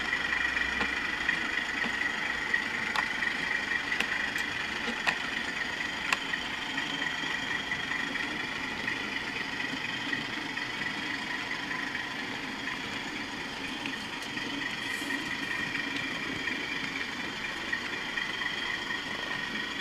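Model railway train with a DCC sound-fitted locomotive running: a steady engine sound from the decoder's speaker mixed with the whirr of wheels on track, and a few sharp clicks along the way. It eases slightly as the train draws away.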